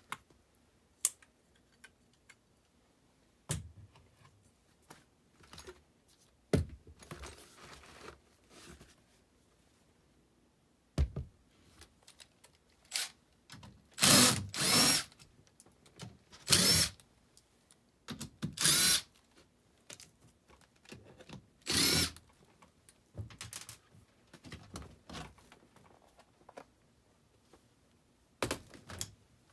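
Cordless drill/driver running in several short bursts, the loudest about halfway through, as it backs the screws out of the HVAC unit's access panel. Scattered knocks and clicks of tools and panel metal come before and after.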